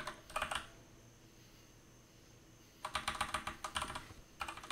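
Typing on a computer keyboard: a few keystrokes at the start, a pause of about two seconds, then a quick run of keystrokes.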